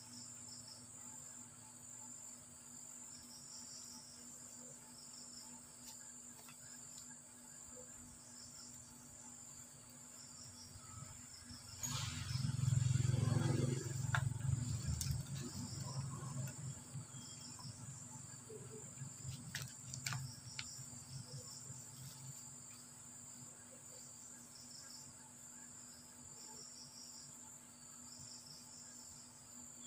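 Insects chirring steadily, a high continuous buzz with a pulsing trill beneath it. About twelve seconds in a low rumble swells up, becomes the loudest sound, and fades away over several seconds.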